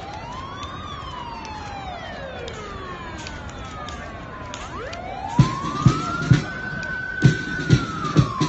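A siren wailing, its pitch rising and falling slowly twice. From about five seconds in, a run of heavy low beats starts beneath it.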